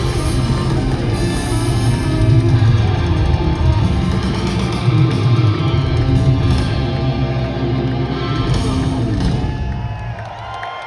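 Live rock band playing loud, with electric guitar to the fore over bass and drums; the music dies away near the end.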